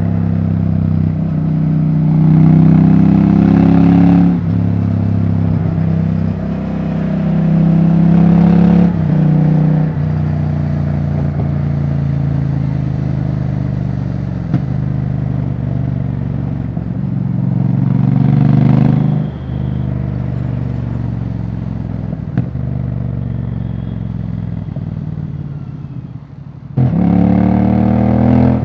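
Royal Enfield Bear 650's 648 cc parallel-twin engine running loud with its silencer removed, accelerating through the gears. Revs climb and break off at a gear change about four, nine and nineteen seconds in. Near the end the revs fall away, then the throttle snaps open again.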